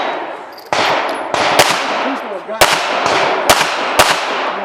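Pistol shots fired in an irregular string, about six in under five seconds, each with a short echo trailing off.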